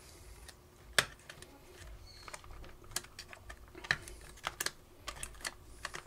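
Irregular small clicks and taps of plastic trim being handled and pressed onto a Ford GT350 steering wheel. One sharper click comes about a second in, then a quicker run of small clicks over the last few seconds.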